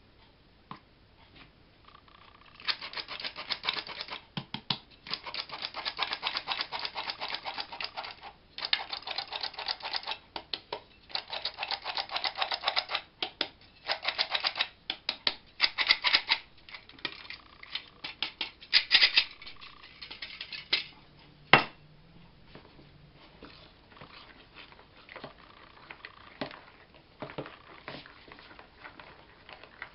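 Hand-crank flour sifter being turned in bursts of rapid clicking and rasping as flour is sifted into the bowl, over most of the first twenty seconds. A single sharp knock comes about twenty-one seconds in, then quieter ticks and scraping as a spoon stirs the flour in.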